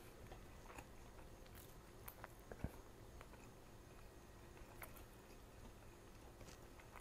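Near silence: faint chewing, with a few soft clicks scattered through.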